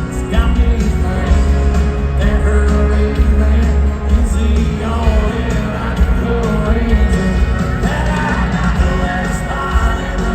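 Live country band playing with a lead voice singing, and a heavy, booming bass and steady drum beat, as heard from within an arena audience.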